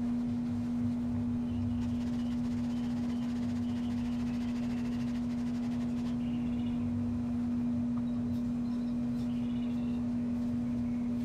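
A steady low hum at one constant pitch, with a few faint short chirps higher up.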